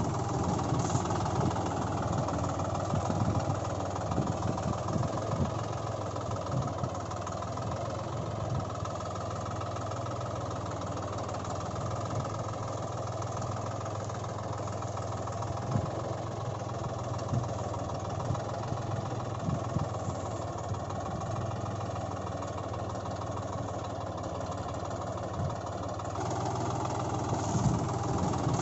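Tractor engine sound effect running steadily at an idle-like pace, with scattered low thumps.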